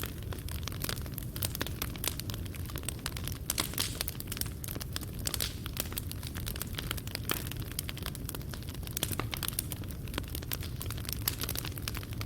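Wood fire burning in a fireplace: irregular snaps and pops of burning wood and coals over a steady low rumble of the flames.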